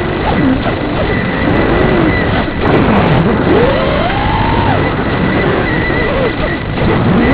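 Wizard X220 racing quadcopter's brushless motors and propellers whining, the pitch sweeping up and down with the throttle: a deep dip about three seconds in, then a rise and a fall again. Under it are a steady hiss and a thin constant high tone.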